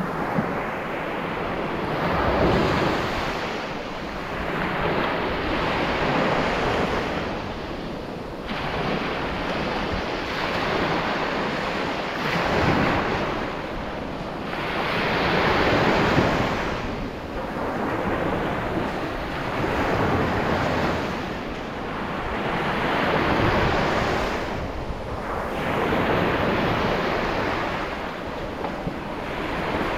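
Sea waves breaking and washing up a beach, surging every few seconds, with wind buffeting the microphone.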